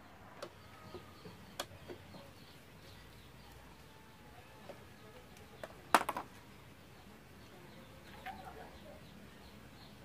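Light clicks and one sharp knock about six seconds in from a spin-dryer motor being handled against a washing machine's plastic base, with faint bird calls in the background.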